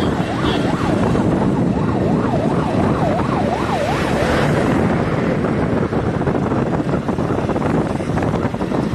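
Wind rushing over the microphone and road noise from riding along a road, with a siren yelping in quick rising-and-falling sweeps over the first half, fading out about halfway through.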